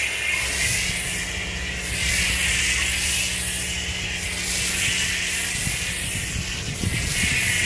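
Pressure washer foam cannon spraying a silicone-based wax replacement onto a vehicle panel: a steady hiss of spray. Beneath it runs a steady low hum from the pressure washer.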